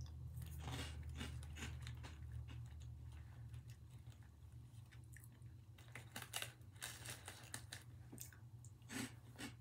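A person chewing a crunchy fried snack marinated in tonkatsu sauce, with irregular crisp crunches.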